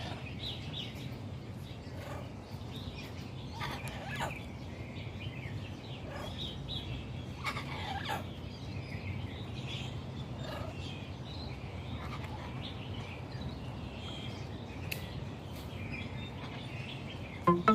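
Birds chirping and calling on and off, with a few louder short calls about four and eight seconds in, over a steady low background hum.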